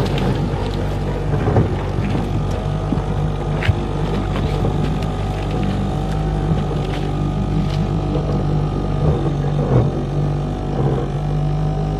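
Outboard motor running steadily as the boat pushes through thin ice and slush, with a few scattered sharp clicks and knocks of ice against the hull.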